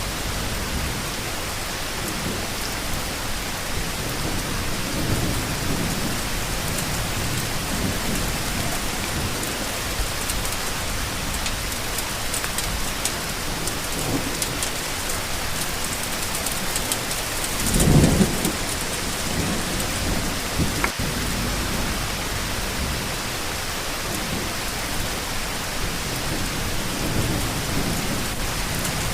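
Steady heavy rain with low rumbles of thunder, and one louder, short thunder burst about two-thirds of the way through.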